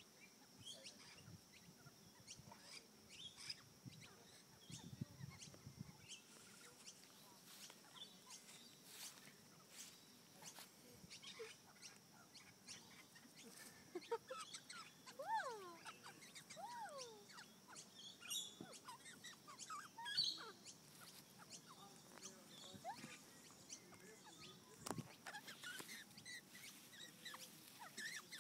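Near silence with faint calls from a young Australian magpie: a few short gliding notes about halfway through, and scattered quiet chirps and clicks.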